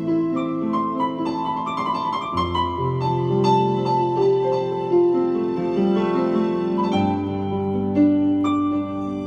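Digital keyboard played in a piano voice with both hands: slow, held chords over low bass notes, the bass note changing about two seconds in and again near the end.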